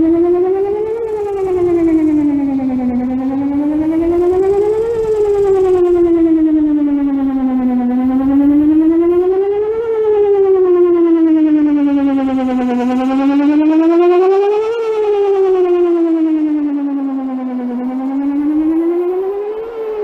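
Whelen 4008 electronic outdoor warning siren sounding a wail, its pitch slowly rising and falling about every five seconds. This is the city's outdoor warning system being tested.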